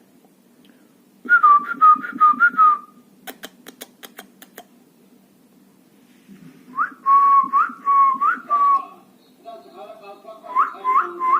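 Runs of short whistled notes on a steady pitch, each note sliding up into it. There is a burst of seven or so about a second in, another run at about six and a half seconds, and a third near the end at about two and a half notes a second. A few sharp clicks sound between the first two runs.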